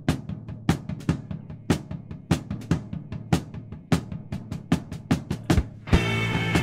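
Drum kit playing the opening beat of a song, about three strong hits a second. About six seconds in, the rest of the band comes in with held chords over the drums.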